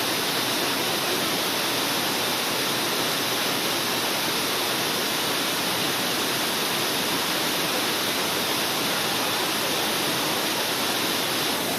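Steady rushing roar of water pouring down a waterfall, unbroken and even.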